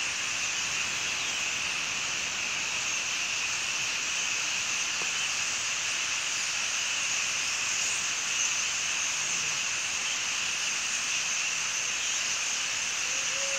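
A huge mass of starlings calling all at once as they gather to leave their roost: a steady, high-pitched din in which no single call stands out.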